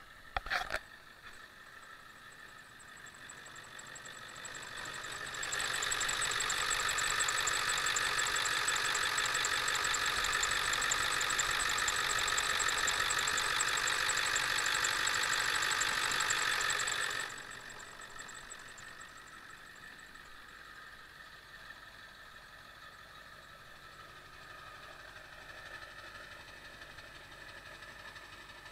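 Ford 7.3 L Power Stroke V8 turbo-diesel in a 1999 F-350 running after a cold start. There is a sharp click near the start. The engine sound swells over a few seconds, holds much louder for about ten seconds, then drops suddenly back to a quieter steady idle.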